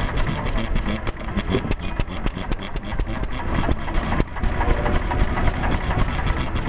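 Vintage single-cylinder stationary engine with an open water hopper and twin spoked flywheels running at idle: a steady, even beat of exhaust and mechanical clatter.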